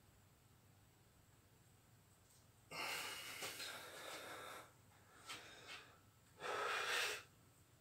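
A man breathing hard while straining through bodybuilding poses: a long noisy exhale about three seconds in, two short puffs, then another strong blow of breath near the end.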